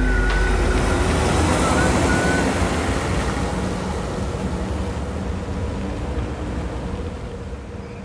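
Heavy concrete mixer truck running, a steady low rumble with a thin high squeal in the first couple of seconds. It fades gradually from about three seconds in.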